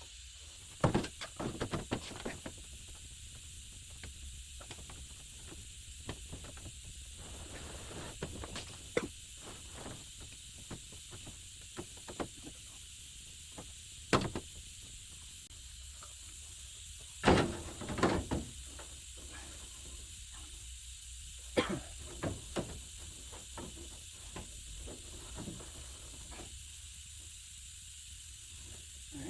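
Scattered knocks and light clanks of shop work, a few of them sharp, some in quick clusters, over a steady high hiss.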